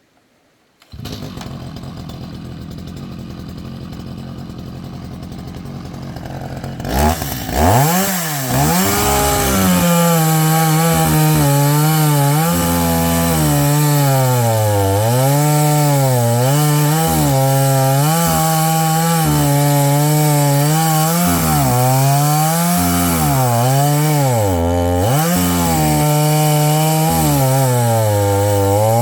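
Chainsaw engine comes in about a second in and runs at idle, revs up around seven seconds in, then cuts through a log, its pitch repeatedly dipping under load and picking back up.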